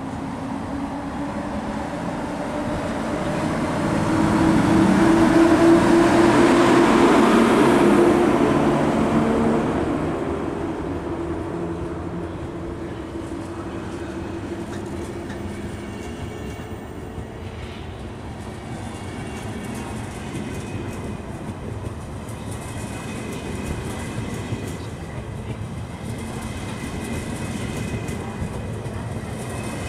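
PKP Intercity class EU07 electric locomotive pulling a departing passenger train past close by, loudest about four to nine seconds in with a steady hum. Then the coaches, including Russian Railways cars, roll past with their wheels running over the rails at a lower, even level.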